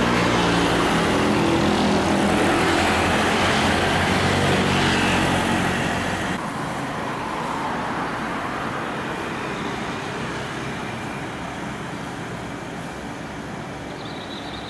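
Street traffic: a car engine runs close by for the first six seconds or so, then gives way to a quieter, steady hum of passing traffic, with another vehicle drawing near at the end.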